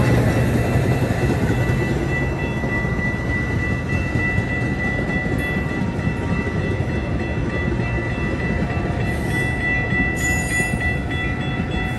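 Metra commuter train rolling over the tracks at a grade crossing, a steady low rumble of wheels on rail that eases slightly. A grade-crossing warning bell rings throughout as a steady high tone.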